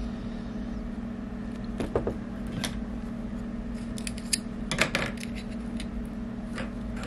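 Thin nickel strip being pushed and worked through the slots of a small 3D-printed plastic part by hand: scattered small clicks and scrapes, most of them around the middle, over a steady low hum.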